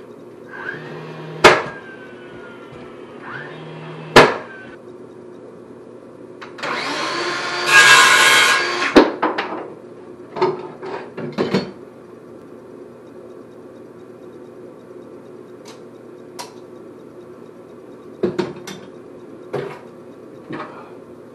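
A nail gun fires twice into the wall, each sharp shot coming after a short whir. Then a circular saw runs and cuts through a strip of wood molding for about two and a half seconds, followed by a few light knocks and clicks of handling.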